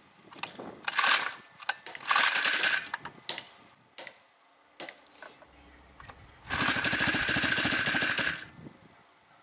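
Start attempts on a newly installed 144F four-stroke motorized-bicycle engine: short bursts of fast mechanical rattling as it is cranked, then a longer burst of about two seconds about two-thirds of the way through.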